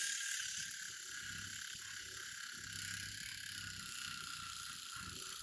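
Small electric pumpkin-carving cutter running steadily with a high, even buzz.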